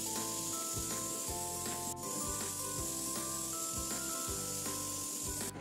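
Background music: a melody of held notes over a steady beat.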